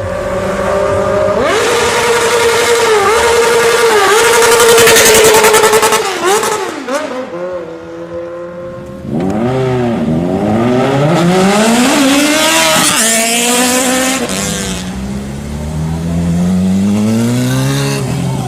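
Four-cylinder sport motorcycle engines revving hard and accelerating, the pitch climbing and dropping again and again. The sound eases off briefly about halfway through before more rising revs.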